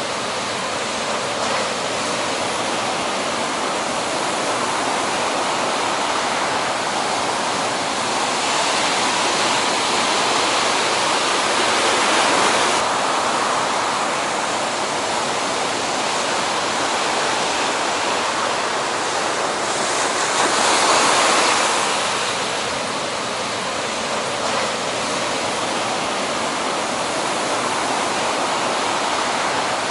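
Heavy ocean surf breaking in a continuous rush of whitewater, swelling louder twice: about a third of the way in and again about two-thirds through.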